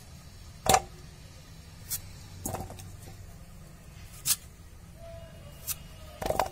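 Raw pumpkin being sliced and peeled against a bonti, a fixed upright curved blade: about six short, sharp cutting clicks at irregular spacing, the loudest about a second in, over a steady low background hum.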